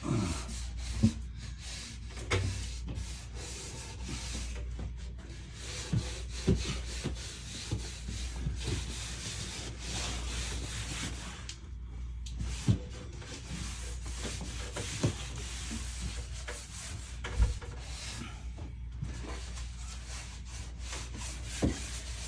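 A damp cloth wiping over sanded drywall joint compound, a steady rubbing that takes the sanding dust off the wall, with a few sharp knocks along the way.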